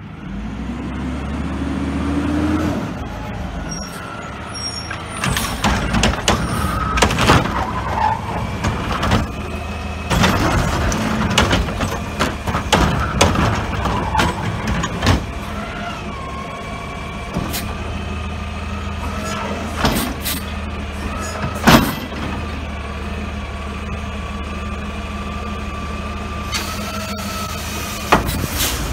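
Diesel front-loader garbage truck with a Curotto-Can automated arm running at the curb, its hydraulic pump making a steady whine as the arm grips, lifts and tips a cart. Repeated metal clanks and bangs come from the cart being dumped into the can, with air-brake hiss. Near the end a hydraulic line bursts and sprays fluid onto the exhaust, which sets off a fireball.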